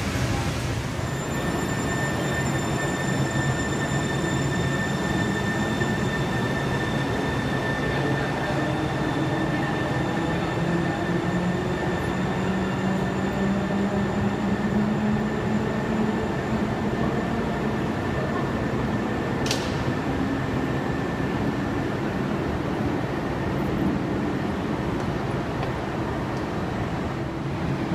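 Sound Transit Link light rail train running in an underground station: a steady rumble under a thin high whine, with a lower motor whine that rises and then falls in pitch midway. One sharp click about two-thirds of the way through.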